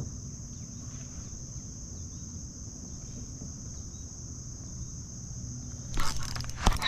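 Steady high insect buzz, crickets or similar, over a low outdoor rumble. About six seconds in, a short loud burst of rustling and sharp knocks breaks in.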